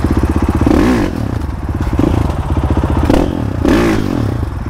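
Motorcycle engine running at low revs, its exhaust pulsing evenly, with several short blips of throttle that rise and fall.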